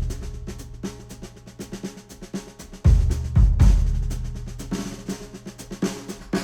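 Drum-heavy music played back through Sennheiser headphones and picked up by microphones. It has rapid snare and percussion hits over a bass line, and heavy kick-drum hits come in about three seconds in.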